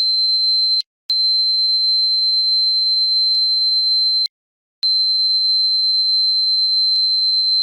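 Dog-whistle sound effect: one steady, high-pitched whistle tone that stops briefly about a second in and again a little after four seconds, then resumes unchanged.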